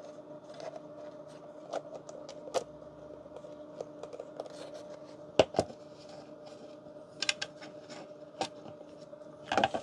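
Light clicks and knocks of a Festool radio's plastic front panel being handled and lined up against the case, the two loudest knocks close together about halfway through. A faint steady hum runs underneath.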